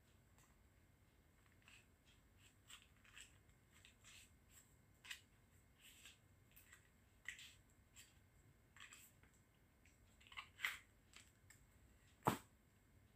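Near silence: room tone broken by scattered faint small clicks, with one sharper click near the end.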